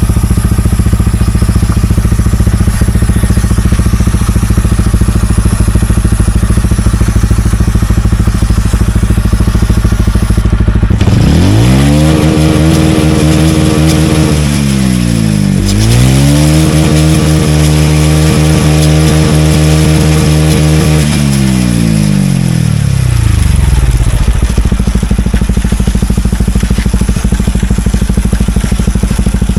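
TVS Ronin's single-cylinder engine running on its stand with the rear wheel turning in gear. It is steady at first, then revs up about eleven seconds in, dips and rises again, and settles back to a steady run a few seconds before the end.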